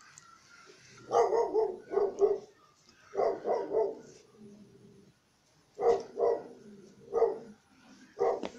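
Šarplaninac (Yugoslavian shepherd dog) puppy barking in short play yaps, several quick clusters of two to four barks with brief pauses between.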